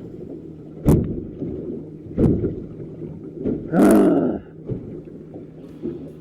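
Several knocks and thumps, the loudest and longest a rough, grating noise about four seconds in, over a steady low hum.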